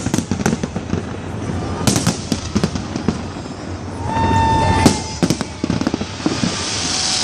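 Fireworks display: an irregular series of sharp bangs and crackles from bursting shells, with a brief steady pitched tone about four seconds in and a rising hiss near the end.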